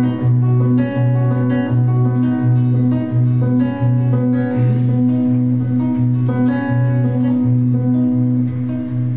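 Acoustic guitar played fingerstyle: a steady repeated bass note, nearly two a second, under picked higher notes.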